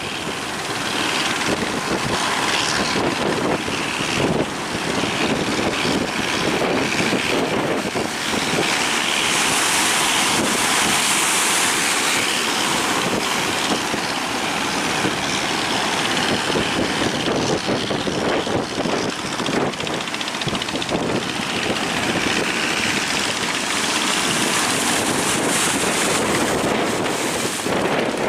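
A boat's engine running amid wind buffeting the microphone and surf, with the rush of breaking waves swelling up twice.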